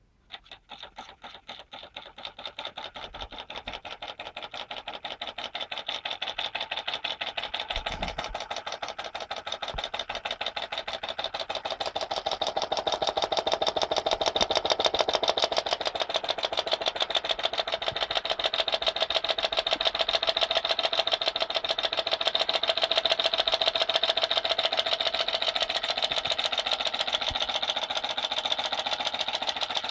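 Homemade Stirling engine with a fan propeller running, a fast, even clatter of its moving parts. It starts suddenly, grows louder over the first ten seconds or so as it picks up, then holds steady.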